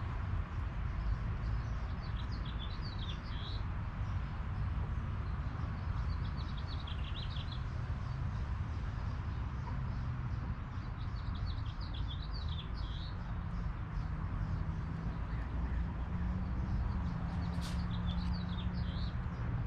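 A bird chirping in short, quick phrases, four times about four to five seconds apart, over a steady low outdoor rumble.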